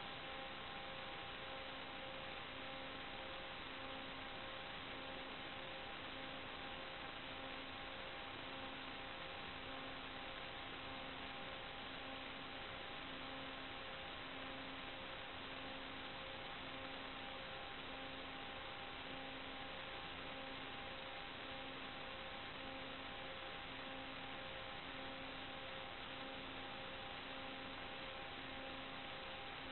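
Steady electronic hiss with a few faint held tones and a low tone that pulses on and off about every second and a half, the static of an analog FPV video link's audio channel. No motor or propeller sound can be picked out.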